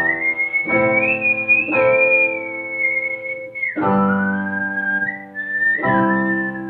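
Mouth whistling of a song melody, one clear pure tone that holds high, dips lower a little past the middle and climbs again, over electronic keyboard chords struck about five times and left to ring.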